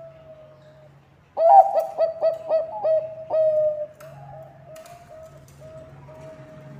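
Zebra dove (Bangkok perkutut) cooing. About a second and a half in, it gives a loud run of about eight quick staccato coo notes, roughly three a second, then trails off into softer drawn-out coos.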